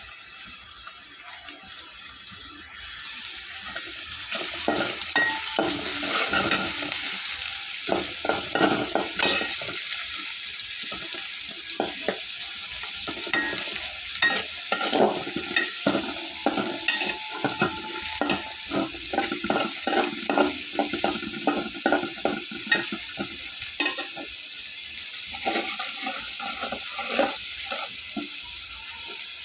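Food sizzling as it fries in a pan, stirred with a spatula that scrapes and taps against the pan in quick irregular strokes. The stirring picks up about four seconds in.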